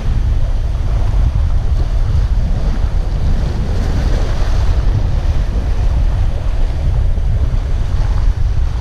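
Sea waves breaking and washing against the boulders of a rock breakwater, under a steady low rumble of wind buffeting the microphone.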